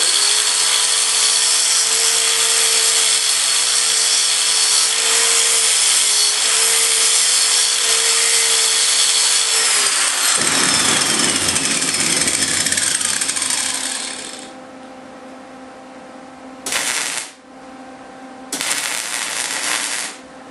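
Angle grinder grinding steel rod for about ten seconds, then switched off, its whine falling in pitch as it spins down. Near the end come two short bursts of crackling arc welding: tack welds.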